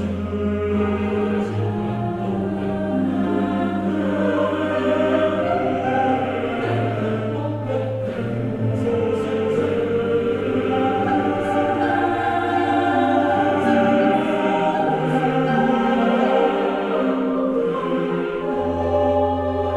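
Choir singing sacred music with a pipe organ, the organ holding long low pedal notes that change every few seconds.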